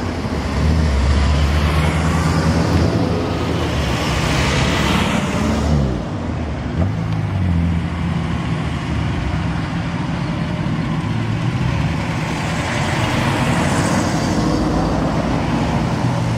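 Classic cars driving slowly past one after another, their engines running with a steady low hum. One car passes loudly about five seconds in, and near the end a Ford Mustang's V8 comes up close.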